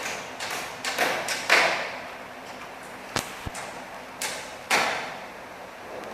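A string of about eight sharp knocks at uneven spacing, clustered in the first two seconds and again after three seconds, each with a short ringing tail.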